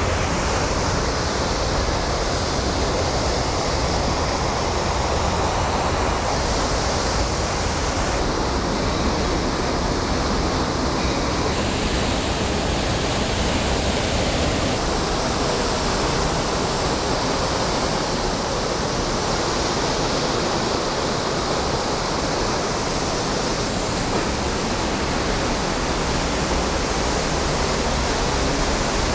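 Steady rushing of water pouring down a waterfall, its tone shifting slightly a few times.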